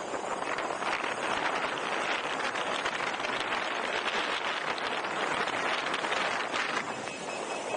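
Steady rush of wind over the microphone while riding a Gotway MSuper Pro electric unicycle at speed, with a faint steady high tone coming in near the end.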